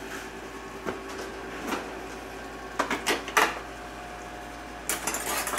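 Scattered light knocks and clicks of kitchen utensils and cookware being handled, a few separate clatters with a small cluster near the end, over a faint steady hum.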